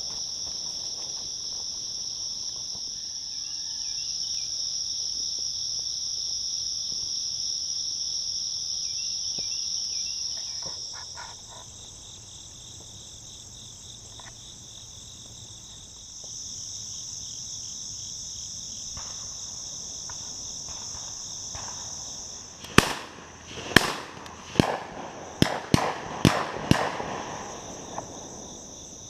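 Steady high chorus of crickets and other insects. About three quarters of the way through, a rapid volley of about seven shotgun shots cracks out over some four seconds, several hunters firing at passing doves.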